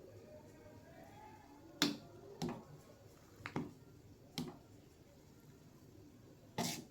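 Kitchen utensils knocking and clicking, about six sharp, short strikes at uneven spacing, the loudest near the end.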